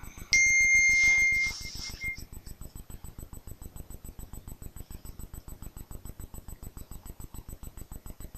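A steady, high electronic beep lasting about a second, breaking into a few short pips, followed by a faint, even rapid ticking of about ten a second.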